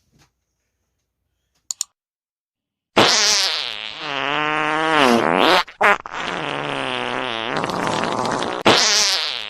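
Long, loud fart-like comic noises start about three seconds in, in three drawn-out stretches, the pitch sliding down and up within each.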